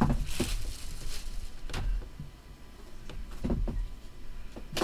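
Clear plastic shrink wrap crinkling as it is pulled away, for about the first second, then a few knocks and taps as a cardboard box is handled on a table.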